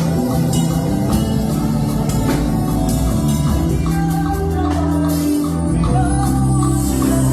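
Music with a steady beat and sustained instrumental notes, with some singing.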